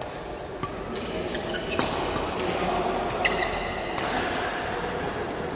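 Badminton play echoing in a large hall: a series of sharp racket strikes on shuttlecocks, with short high squeaks of court shoes on the mat.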